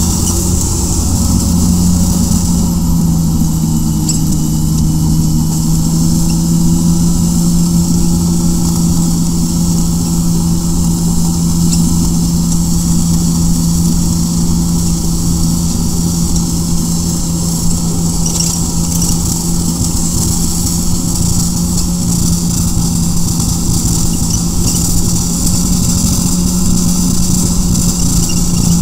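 Vehicle engine running at a steady speed, a constant droning tone that barely changes pitch, over rumbling road and wind noise.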